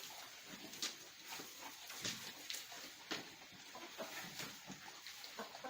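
Sheep feeding: irregular crunching and rustling with short sharp clicks and knocks, over a steady hiss.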